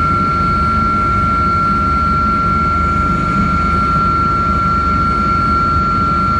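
Helicopter in flight heard from inside the cabin: a steady low rotor and engine rumble with a constant high-pitched whine over it.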